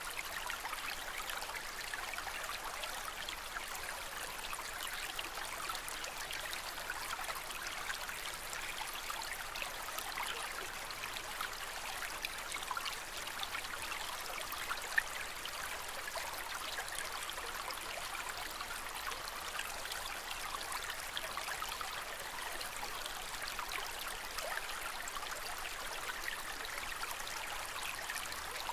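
Aquarium water trickling and bubbling steadily, an even, unbroken splashing wash.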